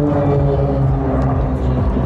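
Four Pilatus PC-9M turboprop trainers flying over in formation: a steady, low propeller drone whose pitch falls slightly.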